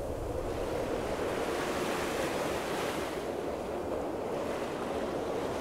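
Steady rush of wind-driven waves on choppy open sea water, with wind.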